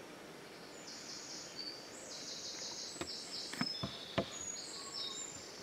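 Woodland birdsong: a small bird sings rapid, high trills in short phrases. About three to four seconds in come a few sharp knocks and clicks as a grey squirrel gets onto a wooden feeder box.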